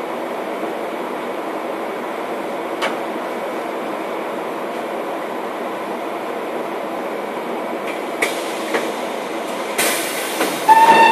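Cabin noise inside a Škoda 14Tr17/6M trolleybus on the move: a steady running rumble with the odd click and knock. Near the end comes a loud hiss with a short squeal.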